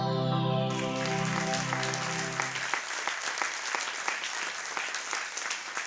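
Sustained intro music fades out under an audience's applause. The clapping starts about a second in and carries on alone after the music stops, about two and a half seconds in.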